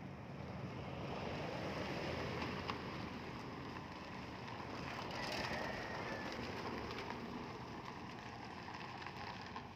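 Cars driving past close by on a rough, broken road surface: tyre and engine noise swelling twice as they go by, then easing off.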